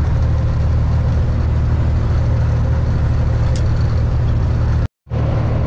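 Semi truck's diesel engine running at highway speed with road noise, heard from inside the cab: a steady, loud low drone. It cuts out completely for a moment about five seconds in.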